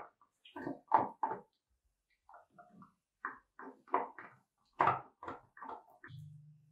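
Boxer dog chewing and gnawing on a hard chew: short irregular crunches and clacks of teeth on the chew, in runs with pauses between. A brief low hum comes near the end.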